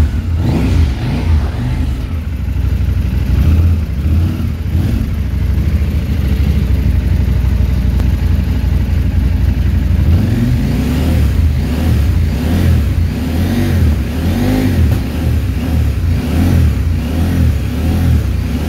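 KTM 790 Adventure S parallel-twin engine running. In the second half its pitch rises and falls several times with the throttle.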